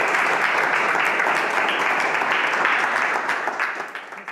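Audience applauding: dense, steady clapping that thins and fades near the end.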